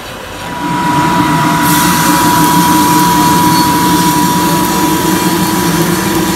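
A Probat drum coffee roaster discharges a batch of dark-roasted beans into its cooling tray. The cooling fan and the rotating stirring arm set up a steady mechanical rumble with a steady whine, rising about half a second in. The rushing hiss of the pouring beans joins about a second and a half in. This marks the end of the roast, after the beans have gone through their cracks to a dark roast.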